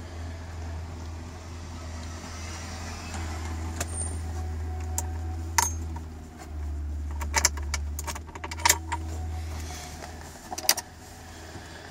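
Polski Fiat 126p's air-cooled two-cylinder engine idling after a cold start, a steady low hum heard from inside the cabin. Over it come several sharp clicks and rattles, bunched in the middle, as the steering-column stalk is worked.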